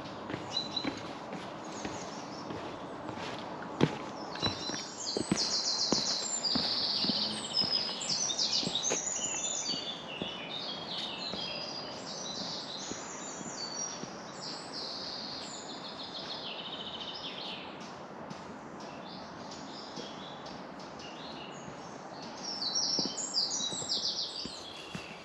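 Several songbirds singing at once in a busy, overlapping chorus of fast high chirps and trills over a steady outdoor hiss. It thins out in the middle and picks up again near the end. Scattered short knocks of footsteps on the trail sound under it.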